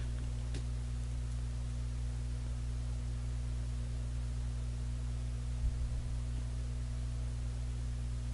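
Steady low hum with a faint even hiss, and a couple of faint soft taps.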